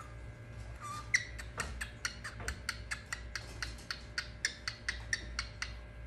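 Pet cockatiel chirping: a short whistle about a second in, then a fast, even run of short sharp chirps, about five a second.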